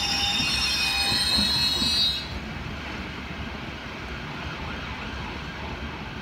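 London Underground S Stock train squealing in several high, steady tones as it brakes to a stop at the platform; the squeal and rolling noise cut off suddenly about two seconds in, leaving a steady low hum.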